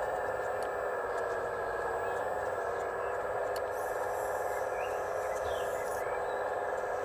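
Steady whine of an RC Case CX85RR excavator's hydraulic pump, running at an even pitch while the tool on the arm is lowered. A faint hiss joins from about halfway and stops near the end.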